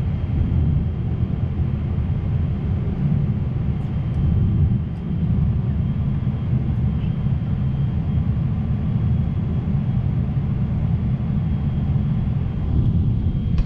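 Airliner cabin noise in flight: a steady low roar of engines and airflow heard through the fuselage, with a faint steady high whine above it.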